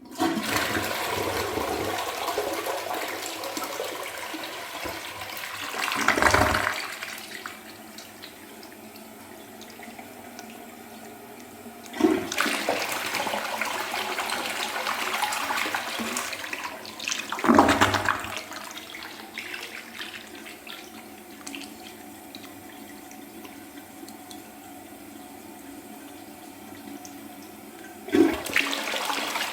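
Universal Rundle Atlas 1.6 gpf open-rim toilet flushed three times, about twelve seconds apart. Each flush starts with a sudden rush of water, surges and gurgles about six seconds in, then settles to a quieter steady running as the tank refills.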